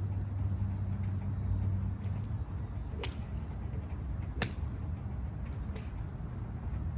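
Two sharp clicks of golf clubs striking balls, about a second and a half apart with the second the louder, over a steady low engine-like hum.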